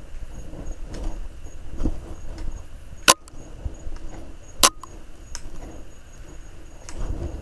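Soft footsteps of someone walking, with two sharp clicks about a second and a half apart that are the loudest sounds.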